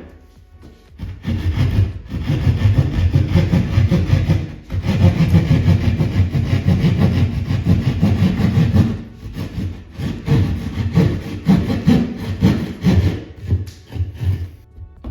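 Hand drywall saw cutting through a drywall ceiling in rapid back-and-forth strokes, pausing briefly about four and a half and nine and a half seconds in.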